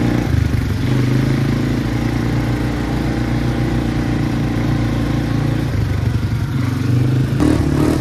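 ATV (quad bike) engine running while riding, its note changing a few times as the throttle varies, over a steady rush of wind and road noise.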